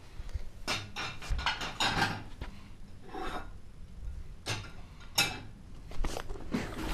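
Irregular light knocks, clicks and rustles of close handling noise as a GoPro and a dangled ribbon are swung about near the floor and a cat paws at them.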